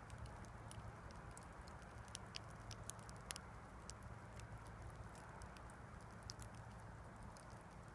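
Campfire crackling: scattered sharp pops and snaps over a soft steady rush, with one louder pop about three seconds in.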